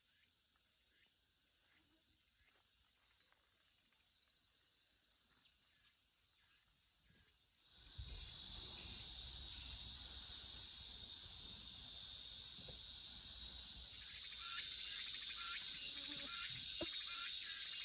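Near quiet at first. About eight seconds in, a steady, high-pitched outdoor insect chorus starts abruptly and holds, with a low rumble beneath it.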